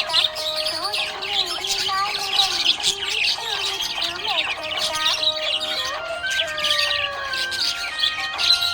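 Budgerigars chirping and chattering, many quick high calls overlapping without a break.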